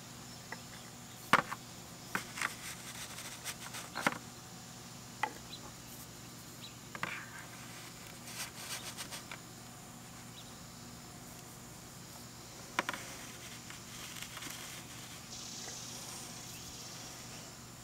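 PVC pipe sections being handled and set into sand in a plastic bucket: scattered sharp knocks and taps as the hollow tubes bump each other and the bucket, about a dozen spread through, the loudest near the start and around two-thirds through, over a faint steady background.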